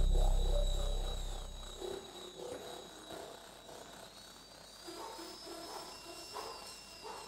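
Electronic stage soundtrack: a deep pulsing drone fades out over the first two seconds. After it come sparse, quieter sounds: short mid-pitched tones and high gliding whistle-like sweeps.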